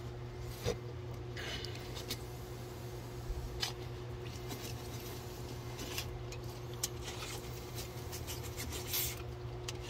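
Aerosol can of Krown rust inhibitor hissing softly as it sprays through a thin extension wand into holes drilled in a truck's rocker panel, with short pauses between bursts. A steady low hum runs underneath.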